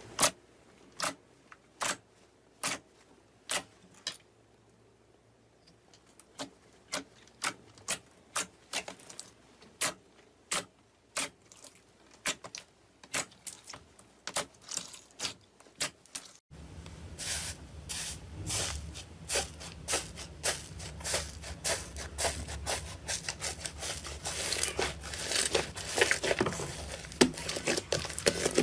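Slime being squeezed and pressed by hand, giving a series of sharp clicking pops. The clicks are sparse at first and then come faster. After a cut about two-thirds of the way through, they come thickly over a low hum.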